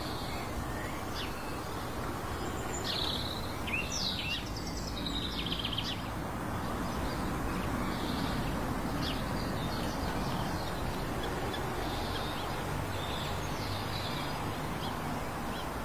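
Outdoor ambience: birds chirping and calling in short scattered bursts over a steady low background noise.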